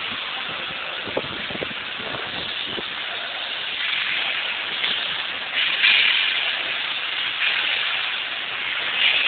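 Steady hiss, growing louder about four seconds in and again near six seconds, with no clear clanks or knocks.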